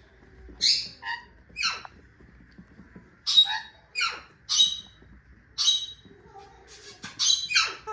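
A pet parrot giving a series of short, shrill squawking calls, about ten of them, several sliding down in pitch.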